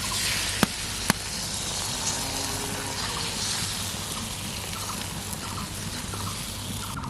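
Beaten egg frying in hot oil in a pan, a steady sizzle, with two sharp utensil taps about half a second apart near the start.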